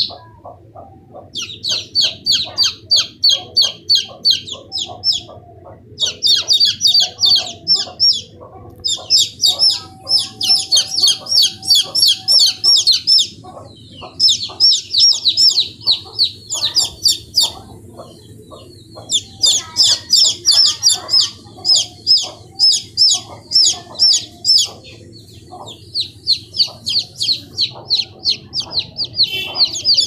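Several young chicks peeping loudly and rapidly, short high-pitched calls several a second, coming in runs of a few seconds with brief pauses between.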